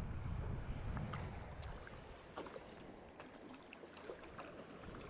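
Sea water sloshing and splashing close by, with many short, sharp small splashes. Wind on the microphone rumbles low and eases about two seconds in.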